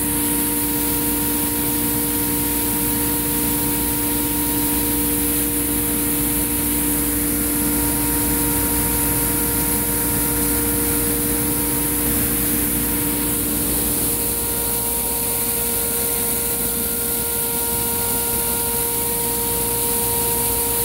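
Electric 4,800 CFM centrifugal fan of a pneumatic coffee conveyor running steadily, with a loud rush of air and a steady hum and whine over it, while conveying green coffee beans through the pipe. One low tone in the hum drops out about two-thirds of the way through.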